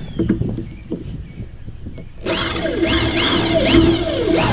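DeWalt electric drill with a 5/16-inch bit boring up through a fiberglass boat hard top. Starting about two seconds in, the motor runs with a steady whine, and the bit grinds and squeals as it cuts.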